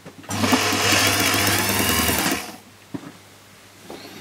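Small BTM lathe's motor running for about two seconds, spinning a clock wheel held in a jacot tool for pivot polishing, then stopping. A single click follows.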